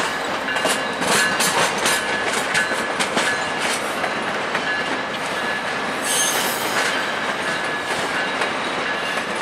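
Steel wheels of VIA Rail HEP-II passenger cars rolling out over track switches: a quick run of clicks and clacks that thins out after about four seconds, over a thin steady wheel squeal. There is a brief hiss about six seconds in.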